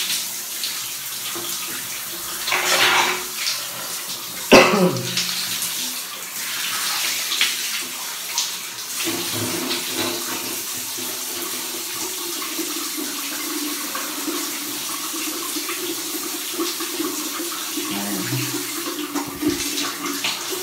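Overhead shower spray running steadily, water splashing onto a body and a tiled floor. A single sharp knock sounds about four and a half seconds in.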